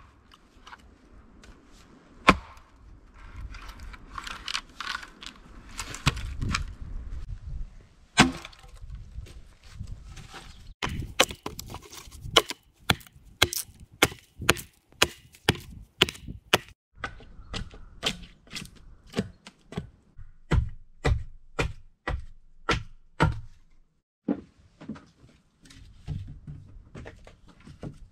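Hatchet chopping and hewing wood: a few spaced blows at first, then a long run of steady strikes at about two a second, then fainter knocks near the end.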